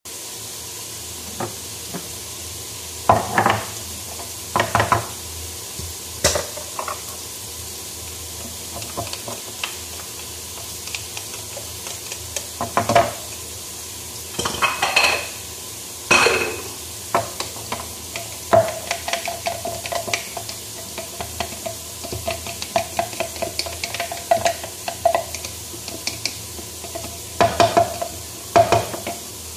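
Kitchen cooking sounds: a utensil knocking and scraping against a pot at irregular intervals over a steady hiss.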